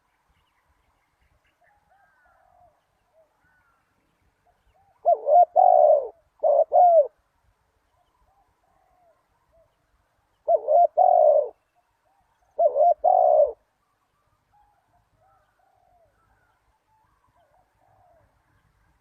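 Spotted dove cooing: two loud phrases a few seconds apart, each made of two short runs of coos. Fainter bird calls sound in the gaps.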